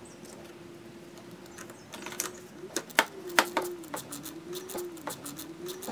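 Small socket ratchet clicking in short irregular runs as the negative battery terminal clamp is tightened onto the battery post, starting about two seconds in. A faint steady hum lies underneath.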